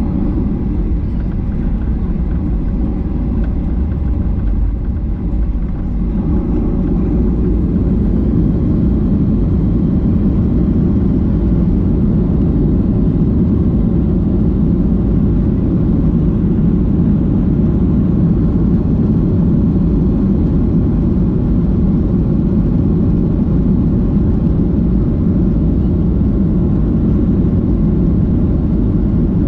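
Steady cabin noise of a Boeing 737-800 heard from a window seat: a low engine rumble and air rush, stepping up slightly about six seconds in and then holding even.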